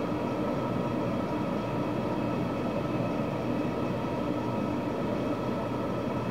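A steady mechanical drone with faint, even whining tones above it, unchanging throughout; no distinct events.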